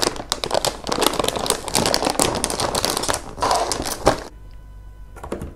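Plastic snack bag being pulled open and handled, a dense run of crinkling and crackling that stops about four seconds in, followed by a few light clicks near the end.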